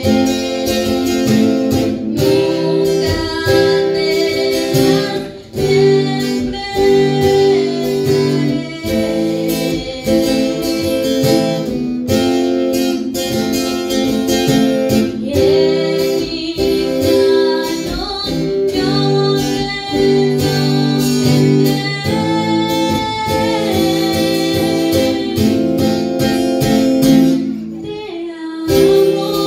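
Live band music: singing over guitar, with long held chords changing every second or two. It drops briefly about five seconds in and goes quieter near the end.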